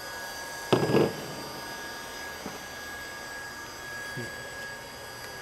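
Steady background hum of a large workshop with a faint, steady high whine that fades out about four seconds in, and one short burst of noise about a second in.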